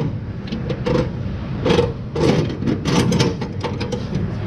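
Nut and washer being spun by hand onto a transmission crossmember mounting bolt: small irregular metal clicks and rattles over a steady low background hum.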